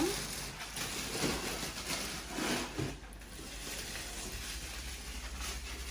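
Faint rustling and handling noise of packaging being opened, with a few soft knocks in the first few seconds, then quieter rustling.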